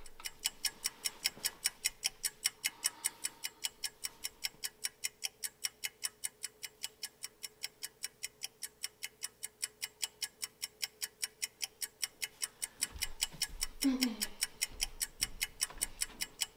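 Fast, even ticking, about four to five ticks a second, like a ticking-clock track over a faint steady tone. A short voice with falling pitch is heard near the end.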